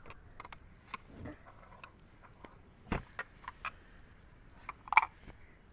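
Light clicks and taps of small plastic toy pieces being handled, scattered and irregular, with the sharpest knocks about three seconds in and about five seconds in.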